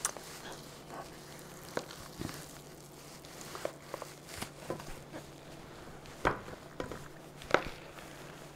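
Metal spoon scraping and clinking against a glass mixing bowl as mashed potatoes are scooped out into a glass baking dish: scattered light knocks at irregular intervals, the two loudest in the last few seconds.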